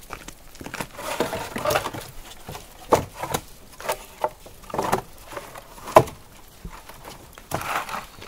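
Old wooden planks knocking and scraping against each other as they are lifted one at a time off a pile and gathered into an armful: a string of dull clacks about a second apart, the sharpest and loudest about six seconds in.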